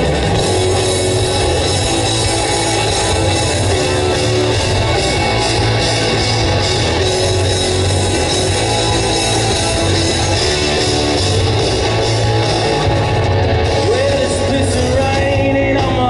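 Hard rock band playing live: distorted electric guitars, bass and drums at full volume. A male lead vocal comes in near the end.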